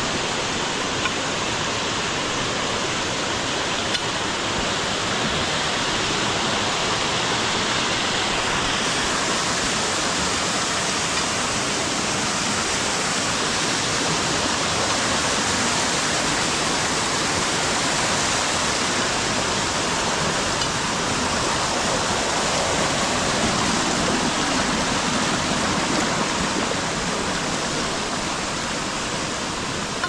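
Small rocky forest stream rushing and cascading over boulders: a steady rush of water.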